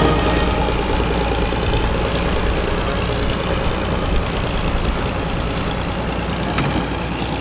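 Small fishing boat's engine running with a steady low rumble under rushing water noise, growing slowly fainter as the boat pulls away.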